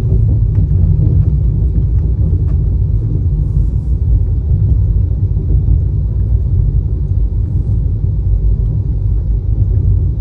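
Express passenger train running at speed, heard from on board: a loud, steady low rumble of wheels on rails, with a few faint light ticks.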